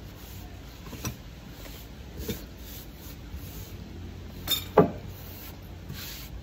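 Hand sweeping crumbs across a wooden tabletop, with a few light taps and one sharper knock about three-quarters of the way through, over a steady low hum.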